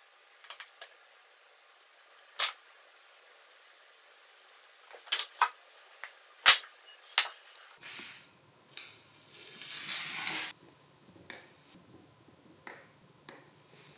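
Sharp metal clicks and taps of small tools and tiny gearbox parts being handled and set down on a steel tray while a cordless screwdriver is taken apart, the loudest single click about six and a half seconds in. A short scraping rustle comes about nine to ten seconds in.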